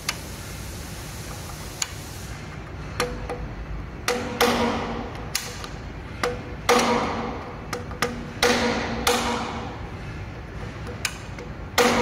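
Sharp metallic blows on a screwdriver whose tip is set against the flat of the charging-port locknut on a Nami Burn-E scooter frame, driving the nut round to break it free of blue threadlocker. About a dozen irregular strikes begin about three seconds in, each ringing briefly.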